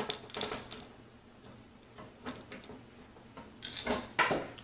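Screwdriver working a screw out of a PC case's top panel. Light ticks come in a cluster at the start and again near the end, with a louder knock about four seconds in.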